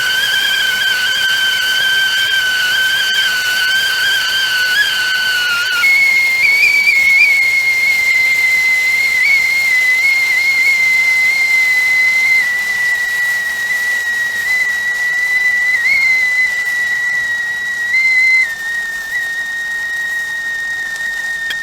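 Stovetop kettle whistling steadily at the boil over a hiss of steam. About six seconds in the whistle jumps to a higher pitch, then holds and drifts slightly lower.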